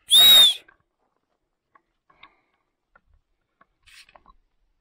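An animal's short, loud, high-pitched cry lasting about half a second, its pitch rising and then falling. It is the second of two such cries about two seconds apart, and faint scattered ticks and rustles follow.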